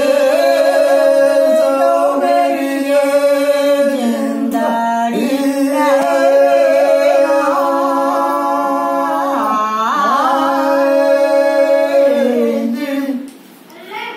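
Unaccompanied Dogri bhakh folk singing by a woman's voice, holding long drawn-out notes that waver in ornamented turns. There are two brief breaths, then a pause near the end.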